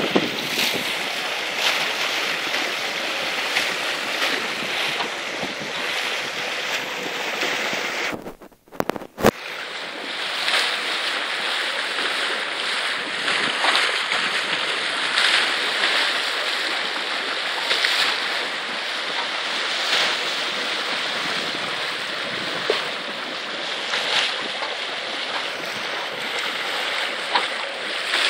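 Wind blowing over the microphone and water rushing and splashing along the hull of a Kettenburg 41 sailboat under way, a steady hiss with surges every second or two. The sound drops out for under a second about a third of the way in.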